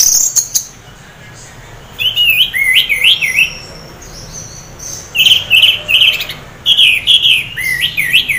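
Caged orange-headed thrush singing in four bursts of quick, rising and falling whistled notes, with short pauses between them. The bird sings in the 'teler' style and is half in breeding condition, a song used to coax other orange-headed thrushes into singing.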